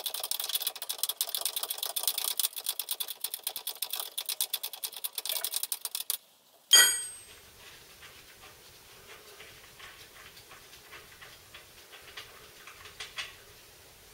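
Socket ratchet clicking in a fast, even run as a nut is spun off a long thread on a VW T25 bus's front suspension, stopping suddenly about six seconds in. A single loud metal clank with brief ringing follows, then fainter, slower ratchet clicks.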